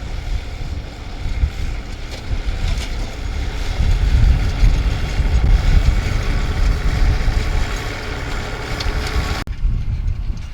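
Farm tractor pulling a hay tedder, engine running steadily as it comes close, loudest about four to six seconds in and then easing, with wind rumbling on the microphone.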